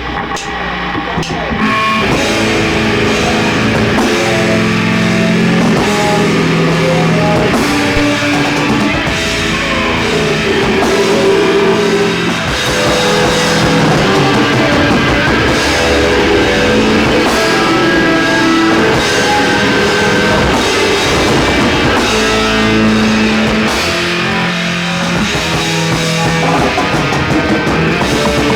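A heavy metal band playing live, with distorted electric guitars, bass and a drum kit. The full band comes in about two seconds in, after a quieter opening.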